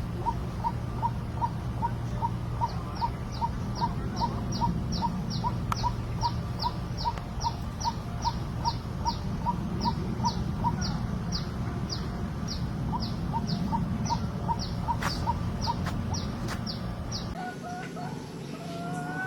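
Birds calling in two steady repeated series: a low short note about three times a second, and a high, sharply falling note at about the same pace, over a low steady background rumble. About two seconds before the end both series and the rumble stop abruptly, and a few softer warbling calls follow.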